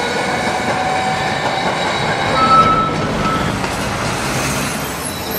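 Tram running along its rails: a steady running noise, with a brief high tone standing out about two and a half seconds in.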